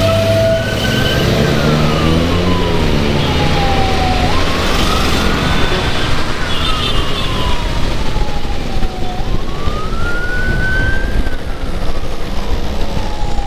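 Electronic siren in a slow wail: the tone rises quickly and then falls slowly, about every four and a half seconds, three times over. Constant wind and road noise from a moving motorcycle lies under it.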